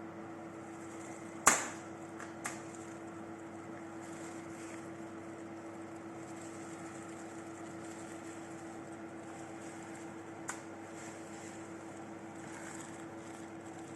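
A steady low hum over a faint hiss, broken by one sharp knock about a second and a half in, a lighter click a second later, and another light click near the end.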